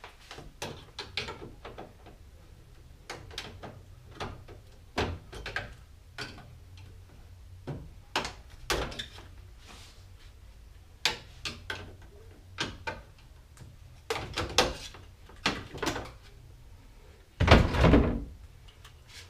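Scattered clicks and knocks of a car grille being taken off: plastic screw clips twisted out with a flathead screwdriver and the grille worked loose, with a heavier thump near the end.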